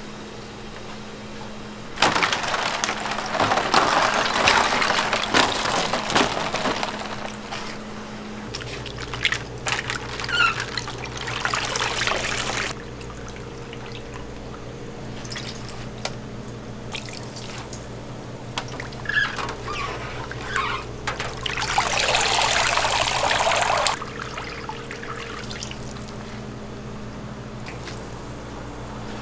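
Water pouring and splashing in several bursts of a few seconds each as blanched spinach is lifted from a stainless steel tray of water and wrung out by hand, over a steady hum of kitchen equipment.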